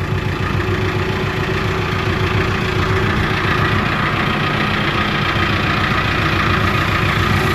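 Farm tractor engine running steadily at an even speed.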